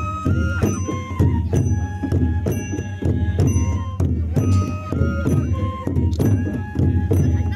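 Bodo traditional ensemble: several kham, long wooden barrel drums, beaten by hand in a fast, dense rhythm, with sifung bamboo flutes playing a melody in held notes above them.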